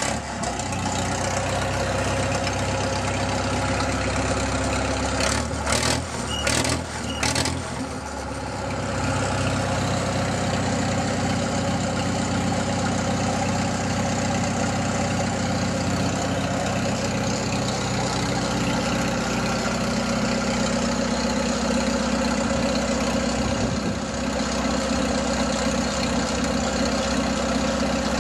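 1949 Farmall M's four-cylinder engine running steadily with a little throttle, in neutral. A few sharp clicks come about six to seven seconds in.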